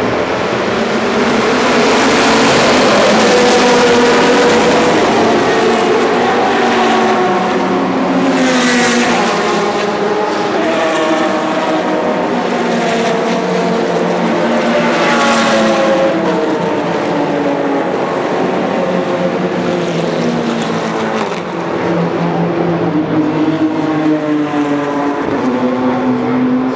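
A pack of GT and touring race cars running together, many engines at once with their tones rising and falling as they rev and pass. Two cars pass louder than the rest, about a third and halfway through, each with a rising sweep.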